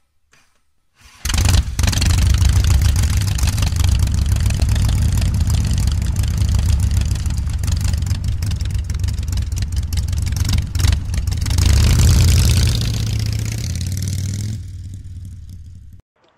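A motor vehicle engine starts about a second in and runs with a rapid uneven pulse. It revs up around twelve seconds in, then dies away and cuts off suddenly near the end.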